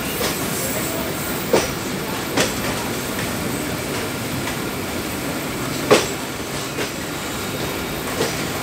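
Indian Railways passenger coach rolling slowly over track, heard from its open doorway: a steady rumble of wheels on rail with four sharp, irregular clacks as the wheels cross rail joints and points, the loudest about two-thirds of the way in.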